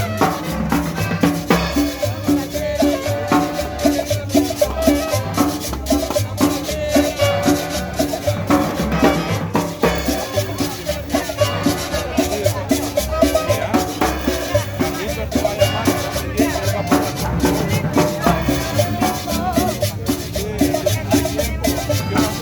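Upbeat salsa-style Latin dance music with a steady percussion beat and maracas.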